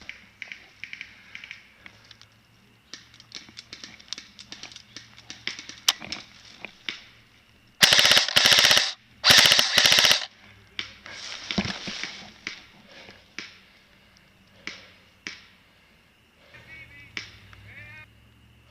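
Airsoft guns firing: scattered single shots and short strings throughout, with two rapid full-auto bursts of about a second each a little under halfway through, the loudest sound.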